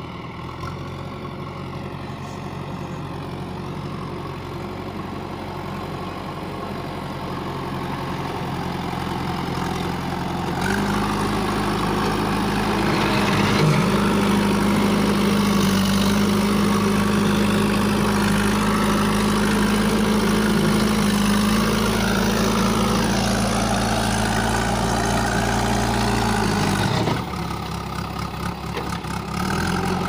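JCB 3DX backhoe loader's diesel engine running steadily while the front loader works soil. The engine sound grows louder at about ten seconds in and drops back shortly before the end.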